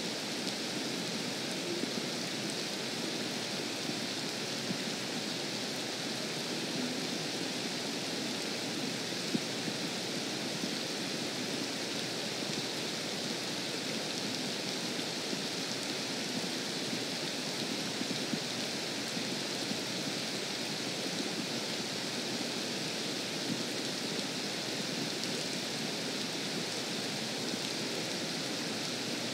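Steady rain falling on a lake's surface, an even hiss.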